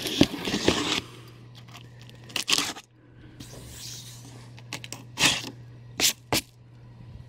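Packing tape being ripped off a cardboard shipping box as it is opened: a rip about a second long at the start, then four short, sharp rips and cracks of tape and cardboard.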